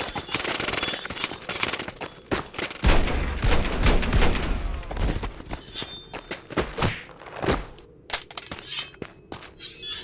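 Fight-scene sound effects: a rapid string of hits, crashes and shattering. There is a heavy low impact about three seconds in, and then separate sharp hits.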